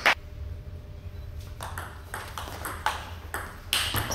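Table tennis ball clicking against table and bats. There is one sharp click right at the start, then after a pause a run of sharp clicks about three a second, with a louder click near the end.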